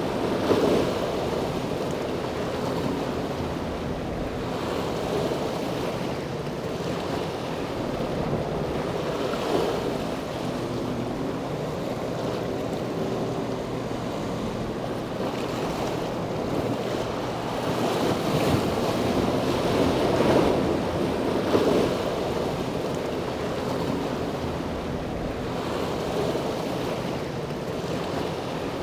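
Wind blowing on an outdoor microphone, swelling in gusts several times, over a faint steady engine hum from boats on the water.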